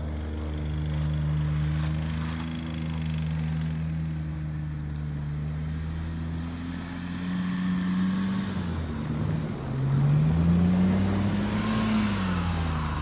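Car engine running at high revs as cars drift on snow, holding a steady note, then dropping and climbing again late on and getting louder.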